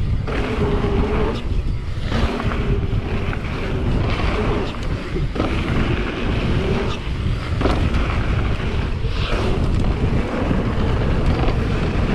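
Wind buffeting the microphone on a fast e-mountain-bike ride, over the rumble of tyres on the dirt trail. A faint wavering whine from the e-bike's motor comes and goes, and a few sharp knocks come from bumps and landings.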